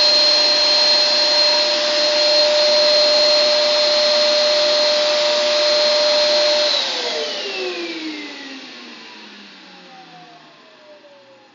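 Vacuum cleaner running steadily with a high whine, then switched off about seven seconds in, its motor winding down with a falling whine that fades over the last few seconds.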